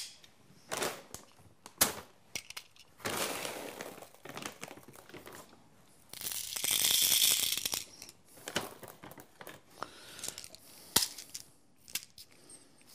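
Plastic bag of airsoft BBs rustling and crinkling as it is handled, loudest in the middle. Small clicks follow as BBs are pressed by hand into a WE Glock 26 gas pistol magazine, with one sharper click near the end.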